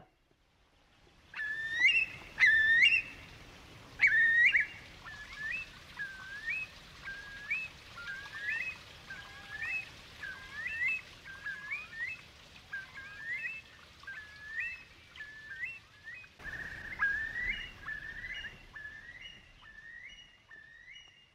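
Eurasian curlew calling: a long run of rising whistled notes, about one and a half a second, the first few the loudest. A soft outdoor hiss lies under it and grows louder in the last few seconds.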